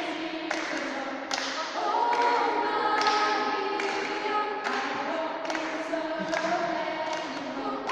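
Youth choir singing in parts, with sharp taps keeping a steady beat about every 0.8 seconds, all ringing in a large reverberant church.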